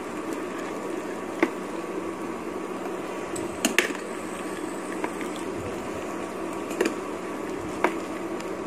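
Diced potatoes and peanuts sizzling in a steel kadhai as they are stirred with a metal spatula, with several sharp clicks of the spatula knocking against the pan.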